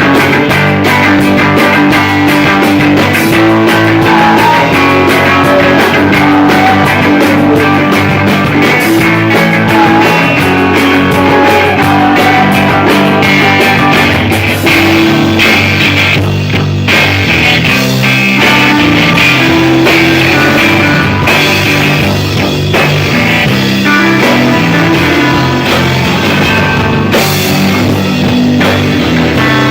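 A rock band playing live, with electric guitar, bass and drum kit at full volume. The drums and cymbals are busy at first and drop back about halfway through, with one cymbal crash near the end.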